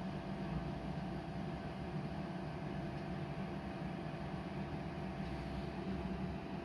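Philips Essential XL air fryer running mid-cook: a steady fan whir with a constant low hum.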